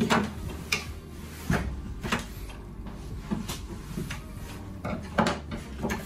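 Plastic parts of a Grundig cordless vacuum's turbo brush head clicking and knocking against a wooden workbench as they are handled. There are about half a dozen sharp knocks, spaced irregularly, over a faint low hum.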